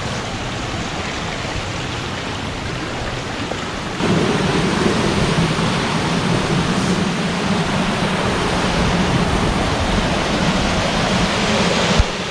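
Rushing water of a rocky creek spilling over cascades, a steady hiss that turns suddenly louder and fuller about four seconds in.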